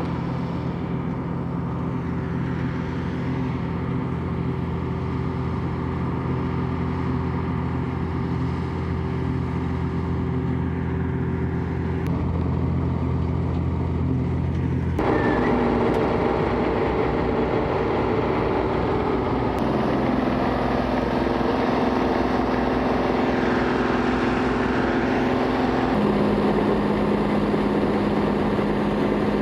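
Combine harvester running steadily while threshing barley, its engine and threshing machinery giving a steady hum. About halfway through, the sound changes abruptly to a closer, noisier run with more rushing, and shifts again near the end.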